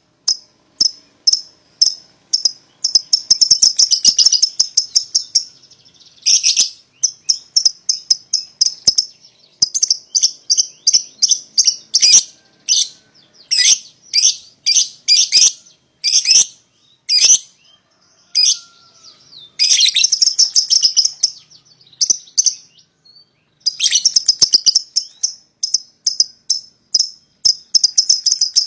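A pair of young lovebirds calling: rapid trains of sharp, high chirps, several running on for a few seconds at a stretch in the long chattering call that lovebird keepers call ngekek.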